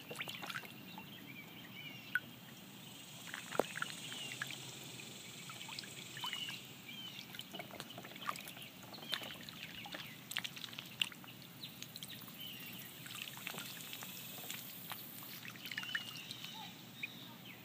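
Runner ducklings splashing and dabbling in a water tub, with many small splashes and ticks and short high peeps scattered throughout.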